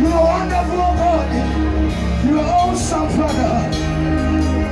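Church worship music: a band playing steadily under singing voices.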